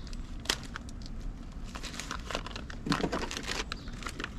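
Plastic bag of nails crinkling and rustling as it is handled, in irregular short crackles, with a louder burst about three seconds in.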